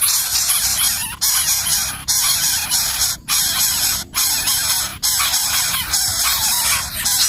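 Loud, steady high-pitched hiss, broken by short gaps about once a second.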